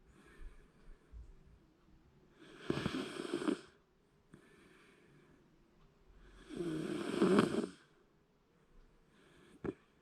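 Shiba Inu snoring in its sleep: two long snores about four seconds apart, each lasting about a second. A short click near the end.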